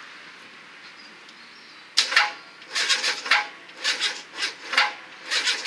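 Starter motor cranking the Renault Clio 1's 1.2-litre Energy engine, which has been run without oil or coolant and is seized or nearly so. From about two seconds in it turns over in short, uneven grinding bursts, about two a second.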